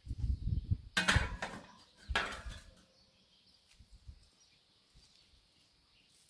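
Wire cooking grate being set onto a charcoal kettle grill: two metallic clatters, about one and two seconds in.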